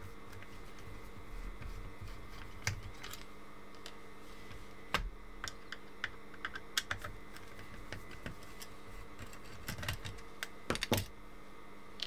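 Small sharp clicks and taps of a screwdriver and plastic parts being handled while the screws holding a Fluke 189 multimeter's circuit board are taken out, over a faint steady hum. The clicks come irregularly, and a burst of louder clicks comes near the end.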